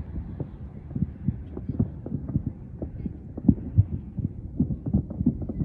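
Many distant fireworks going off: a dense, irregular run of low thuds and pops, several a second, the loudest about three and a half seconds in.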